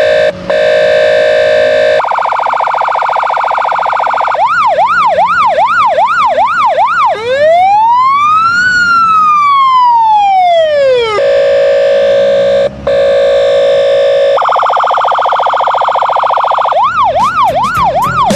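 Electronic police siren cycling through its patterns. It opens with steady buzzing tones, then a fast yelp of about two and a half sweeps a second from about 4 seconds in. One long wail rises and falls in the middle, then steady tones return and the yelp comes back near the end.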